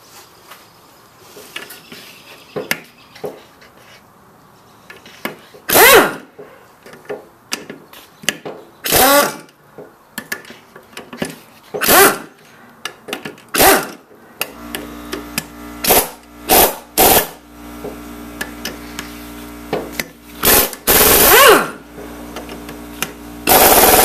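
Impact driver running the cylinder-head bolts out of a Briggs & Stratton 6 HP engine in short bursts, about ten of them, each with the motor pitch rising and falling, and a longer run near the end.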